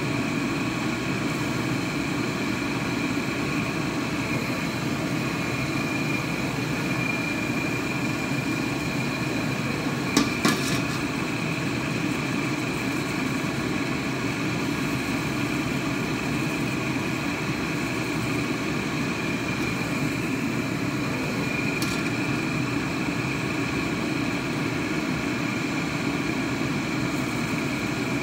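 A steady mechanical hum and rush with a faint high whine over it, running evenly throughout. Two light knocks come about ten seconds in, and a fainter one later.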